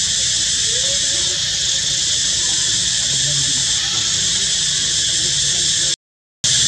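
Loud, steady insect chorus, a dense high-pitched drone. It cuts out completely for about half a second near the end.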